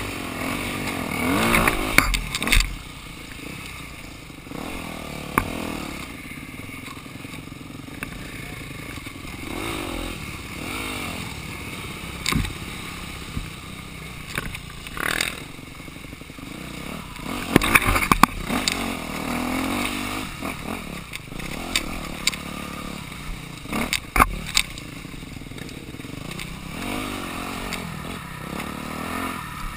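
Dirt bike engine revving up and down as it is ridden over a rough trail, with repeated sharp knocks and rattles from the bike over the bumps.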